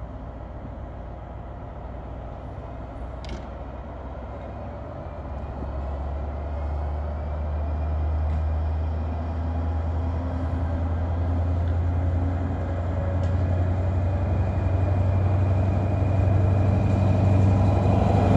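Railway train drawing near, with a low steady hum that grows louder from about five seconds in.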